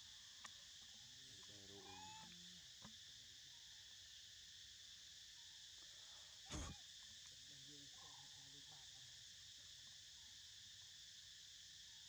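Faint, steady chorus of insects droning in high bands, with a single sharp knock about six and a half seconds in.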